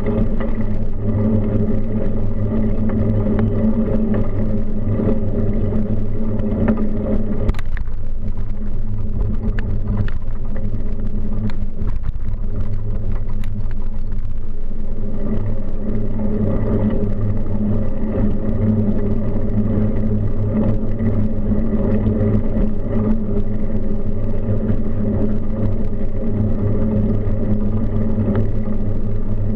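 Steady rumble from a camera mounted on a moving bicycle: tyre and road noise from the ride, with car traffic passing alongside, and a few light clicks partway through.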